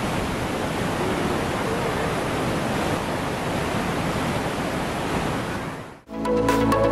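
Waterfall rushing: a steady, dense roar of white water pouring over rock, cut off abruptly about six seconds in.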